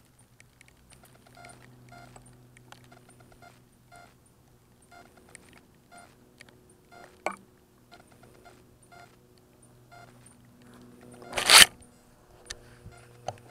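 Faint, short electronic beeps repeating at a steady pace from a crashed FPV quadcopter, its beeper or motor controllers signalling while it lies downed. About two seconds before the end, a short loud burst of noise.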